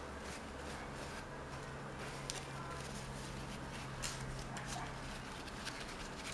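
Quiet workbench room tone with a low steady hum and a few faint light clicks, from small parts and tools being handled during a phone repair.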